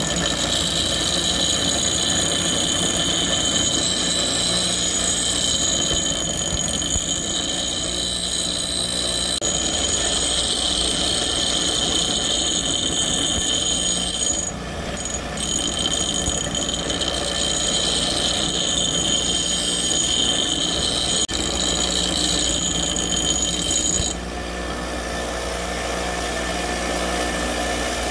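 Bench grinder wheel grinding the edge of an old rusty hatchet: a steady grinding with high ringing tones over the grinder motor's hum, broken briefly about halfway through. Near the end the blade comes off the wheel and only the grinder runs on.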